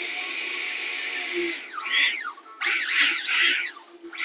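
Electric drill boring into hardwood. Its motor whines steadily for about two seconds, then runs in two short trigger bursts whose pitch rises and falls as the bit, ending with a countersink, cuts into the wood.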